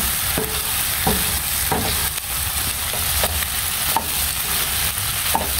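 Chicken feet adobo sizzling steadily in a pan as it is fried down to brown, with now and then a short knock or scrape.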